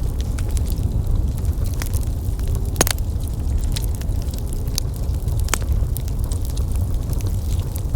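Wood fire burning in a fireplace: a steady low rumble of flames with frequent small crackles and pops, and two sharper snaps about three and five and a half seconds in.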